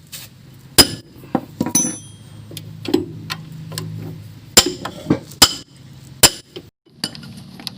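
Hand tools knocking and clinking against metal engine parts: about eight sharp, irregular strikes, a few ringing briefly, over a low hum.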